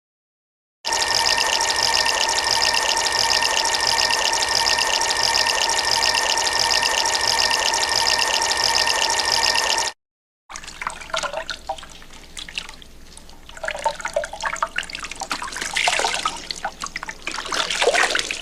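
Two water sound effects back to back: first a steady, even rush of running water for about nine seconds, then, after a short break, irregular splashing and sloshing that gets louder near the end.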